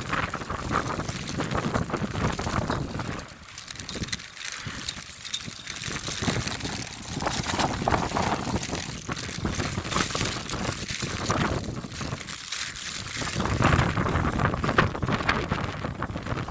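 Wind gusting across the microphone in a snowstorm, a rough, rushing noise that swells and drops back, easing off briefly twice.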